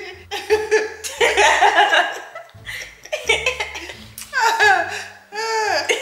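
Women laughing hard in repeated bursts, with high-pitched falling laugh sounds in the second half.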